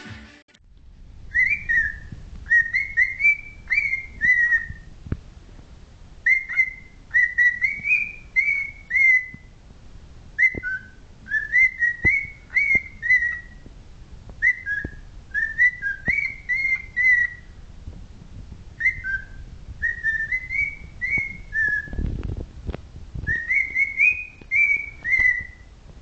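Male cockatiel whistling six phrases of quick, clear notes. Each note slides up and drops, and each phrase repeats much the same pattern, with short pauses between them.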